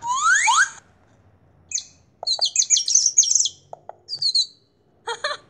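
Sound effects from a children's story app: a quick rising glide at the start, then a cartoon bird chirping in rapid high tweets for about two and a half seconds, and a short burst near the end.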